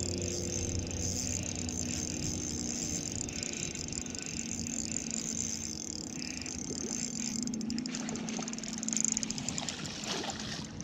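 Spinning reel being cranked steadily while a hooked smallmouth bass is played in. Near the end the fish splashes and thrashes at the surface in shallow water.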